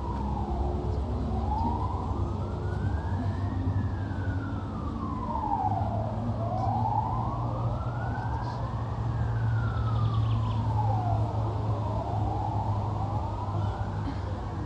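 Emergency vehicle siren wailing, its pitch rising and falling slowly in long sweeps, about one rise and fall every five seconds, over a steady low rumble that grows louder about six seconds in.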